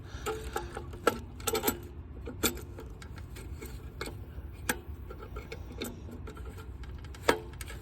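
Scattered plastic clicks and knocks of a circuit breaker being worked onto and off the mounting bar of an electrical panel, with a sharp click about a second in and the loudest one about seven seconds in.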